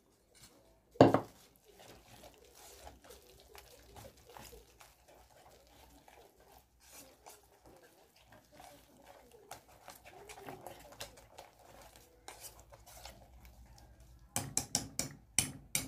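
Wire whisk stirring a thick flour batter full of snails in their shells in a metal pot: faint scraping and clicking, with one loud clunk about a second in. Near the end the whisk strikes the pot in a quick run of loud clinks.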